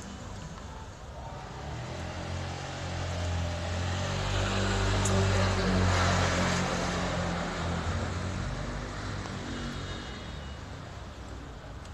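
A car drives past with its engine running, growing louder to a peak about six seconds in, then fading.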